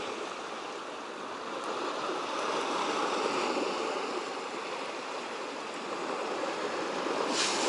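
Sea waves washing over shoreline rocks: a steady rush that swells and eases gently, with a brief louder surge near the end.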